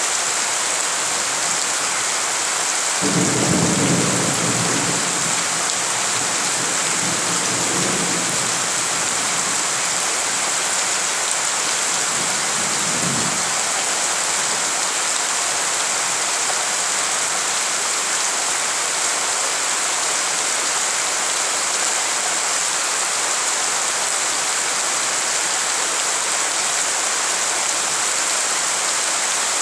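Heavy rain falling steadily on puddled ground, a constant hiss. A low rumble of thunder comes in about three seconds in and fades over several seconds, with a brief second rumble a little later.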